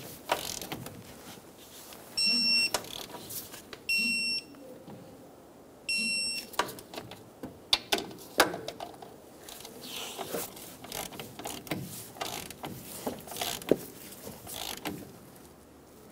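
Electronic torque wrench beeping three times, each beep about half a second long and about two seconds apart, signalling that the strut mount nut has reached the set 47 ft-lb. After that come scattered sharp clicks of the wrench's ratchet head and metal taps on the fittings.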